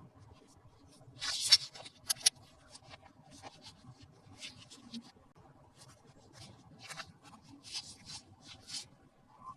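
Toy packaging being handled during an unboxing: soft, scattered rustles and scrapes with a few sharp clicks. The loudest is a scratchy rustle about a second and a half in, followed by two quick clicks.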